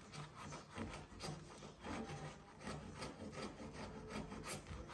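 A large slick chisel (a 2.5-inch Barr slick) pushed by hand across the wooden tenon cheek, paring with a series of short, faint scraping strokes. It is cleaning the ratty finish off a tenon roughed out by the kerf method.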